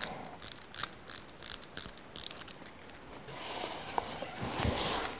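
A small plastic wind-up bullfighter toy being wound: a run of sharp ratchet clicks, about four a second, from its clockwork key. At about three seconds in it gives way to a steady whir as the mechanism runs down.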